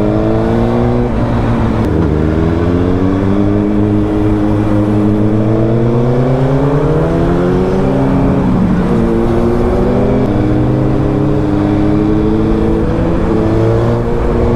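Sport motorcycle engine pulling under acceleration, its pitch climbing steadily and then dropping back sharply about four times as it shifts up.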